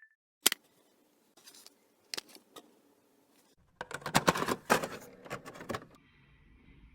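A series of sharp clicks and light rattling from small objects being handled: a few single clicks, then a busier cluster about four seconds in.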